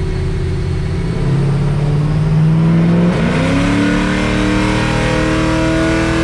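Ford 4.6L 3-valve V8 pulling at full throttle on a chassis dyno in fourth gear, through long-tube headers and a Borla axle-back, its revs climbing steadily. About three seconds in the engine note jumps sharply higher, then keeps rising.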